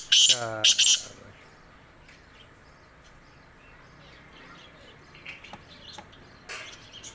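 Black francolin calling: a few loud, harsh notes in the first second, one sliding down in pitch, then faint chirps and another short call about six and a half seconds in.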